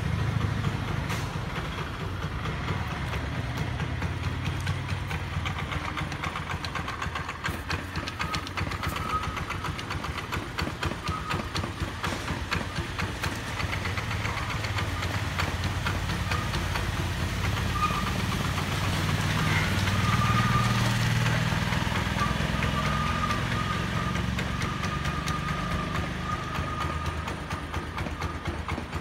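Honda Activa scooter's single-cylinder four-stroke engine idling steadily, swelling slightly about two-thirds of the way through.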